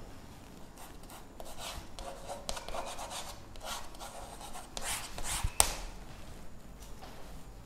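Chalk scratching on a blackboard in a run of short writing strokes, with the loudest strokes and a sharp tap about five and a half seconds in as the answer is double-underlined.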